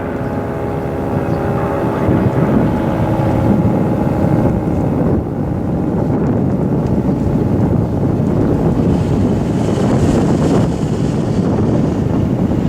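Federal 2T22 two-tone siren winding down, its steady tones fading out over the first few seconds. A loud, steady low rushing noise carries on after the tones are gone.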